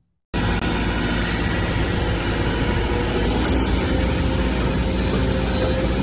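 Kobelco SK250 crawler excavator's diesel engine running steadily as the machine digs soil and loads it into a dump truck. The sound cuts in suddenly just after the start.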